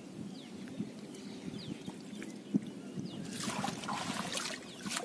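A cast net full of small fish being dunked and shaken in the water beside a wooden boat: water trickling and dripping, then louder splashing and sloshing from about three seconds in.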